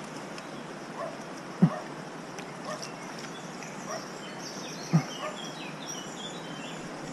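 Small birds chirping and singing in short high phrases, busiest in the second half, over a steady background hiss. Two brief dull thumps, about a second and a half in and again about five seconds in, are the loudest sounds.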